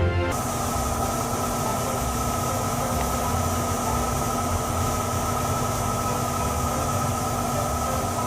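A steady mechanical hum with an even hiss over it, like a running engine. It starts abruptly just after the music stops and cuts off suddenly at the end.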